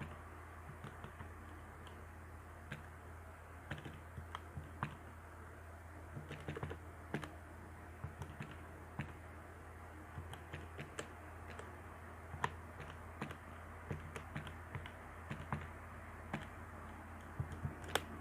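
Keys being pressed one after another in irregular clicks over a steady low hum, as a calculation is keyed in.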